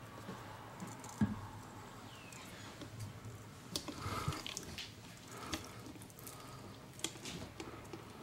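Faint wet handling of raw turkey pieces in a stainless steel pot as hands shake pepper on and rub it into the skin, with a few light clicks and taps.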